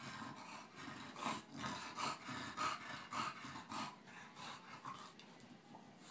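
A Boston terrier and a bulldog play-fighting, with a run of short, noisy huffs of breath about two a second that thin out in the last second or so.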